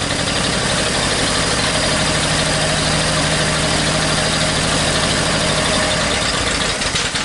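1926 Ford Model T's four-cylinder flathead engine running steadily on its magneto ignition, with rapid, even firing pulses, as the car creeps forward under its own power.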